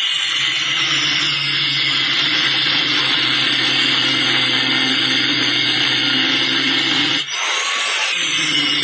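Angle grinder cutting through the steel shell of an old refrigerator compressor, a steady loud grinding. Near the end it breaks off for about a second and then starts again.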